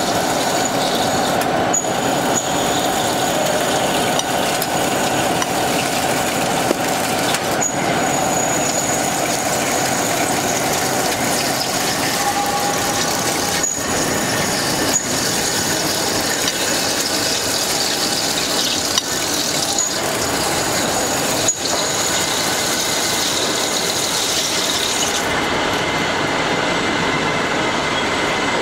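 CNC double-spindle deep-hole drilling machine running, its two opposing drills cutting into a metal workpiece from both ends under flood coolant: a steady, dense machining noise with a thin high whine.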